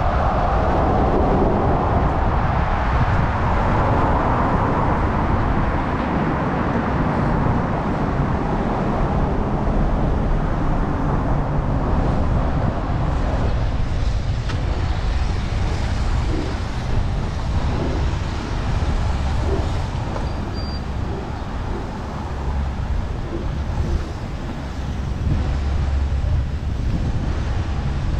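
Road traffic passing, with low wind rumble on the microphone. A passing vehicle is loudest over the first few seconds, then fades.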